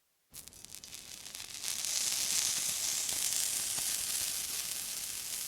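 Water sizzling with fine crackles. It starts abruptly after a brief silence, swells louder about a second and a half in, then holds steady.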